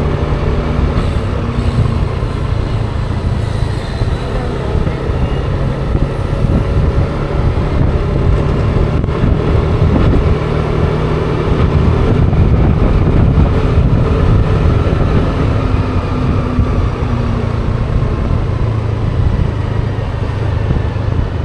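Wind rushing over an action camera's microphone on a scooter moving at about 40 km/h, with the scooter's engine giving a steady hum underneath.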